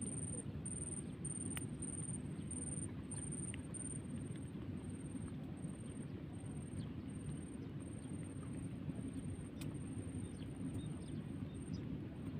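Outdoor ambience: a steady low rumble of wind with a thin, high-pitched chirp repeating evenly about twice a second, typical of an insect.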